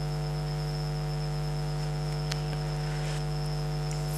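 Steady electrical mains hum from the sound system and recording chain, with a faint high-pitched whine above it.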